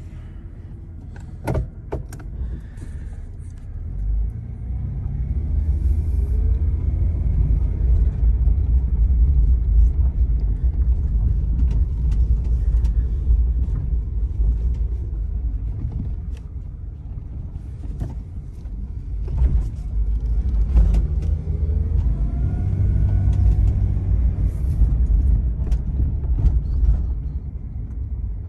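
Ford Explorer driving, heard from inside the cabin: a low engine and road rumble that builds about four seconds in as the truck pulls away. The engine note climbs as it speeds up, eases off midway, and climbs again around twenty seconds in. A few sharp clicks and knocks come near the start.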